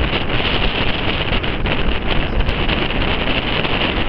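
Steady rushing roar of an Avro Vulcan's four Olympus jet engines as it flies its display some distance away, mixed with heavy wind buffeting on the microphone.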